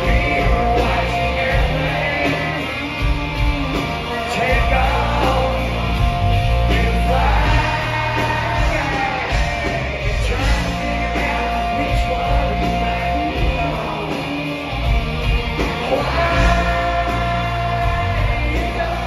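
Live country-rock band playing: electric and acoustic guitars over drums, with a sung vocal line and several long held notes, heard from within the audience.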